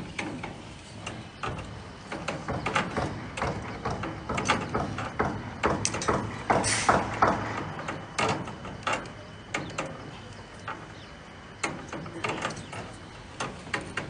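Irregular metallic clicks and knocks from work on a steel rebar mesh and the pipes laid through it, with a louder scraping rustle about seven seconds in.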